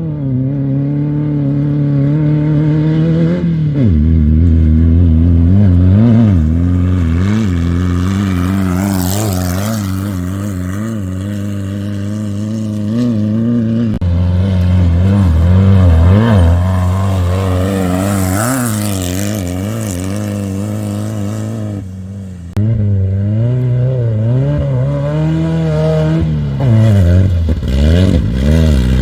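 Off-road race car engines revving up and down over rough dirt, the pitch rising and dropping in quick waves. The sound cuts sharply about 22 seconds in and comes back louder.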